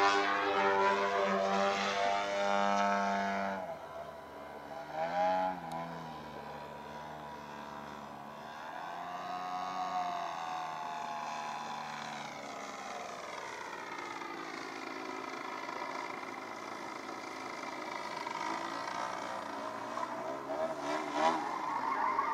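Radio-controlled 3D aerobatic model airplane's motor and propeller. It runs loud and steady, then is cut back suddenly about four seconds in. After that the pitch swells and falls as the plane manoeuvres, with a loud surge near the end.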